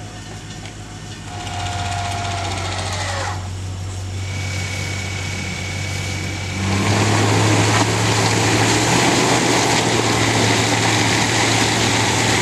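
Off-road 4x4 engine running, with a whine that falls in pitch and stops about three seconds in; about seven seconds in the engine gets louder and is joined by a rushing noise.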